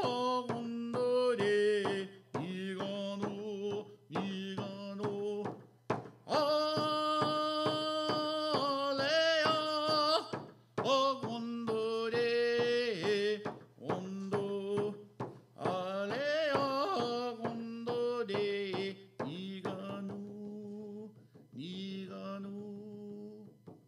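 A man singing a chant-like song in phrases while beating a steady rhythm on a hide frame drum with a wooden beater. The singing trails off over the last few seconds.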